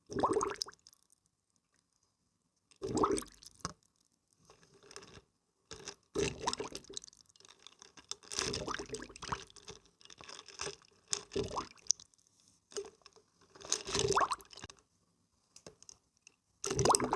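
Water being splashed and poured by hand in short separate bouts, wet gurgles and drips, with brief silent pauses between them.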